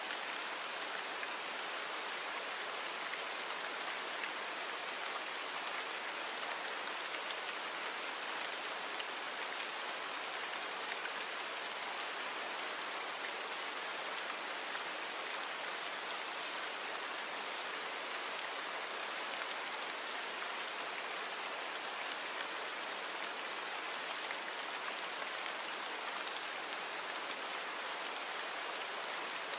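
Steady rainfall, an even hiss of many drops hitting surfaces, unchanging throughout, with faint individual drop taps.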